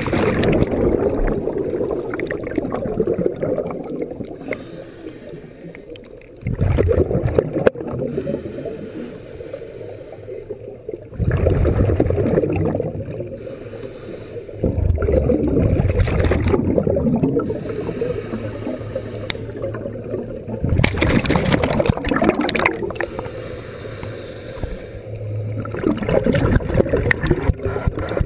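Scuba diver's exhaled bubbles from the regulator, heard underwater: rushing bursts of about two seconds each, repeating every four to six seconds with the breath, with quieter stretches between.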